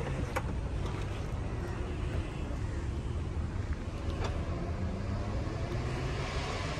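Steady low vehicle rumble, with a short click about half a second in and another about four seconds in.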